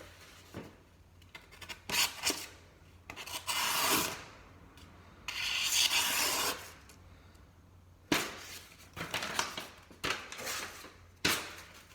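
A knife blade drawn in a series of rasping strokes, about seven, two of them lasting around a second, as its sharpness is worked and tried.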